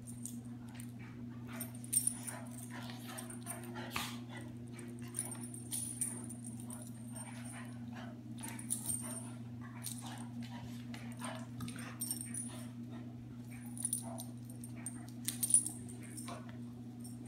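Two dogs play-fighting: scuffling and short, irregular dog noises, with a few louder bursts, over a steady low hum.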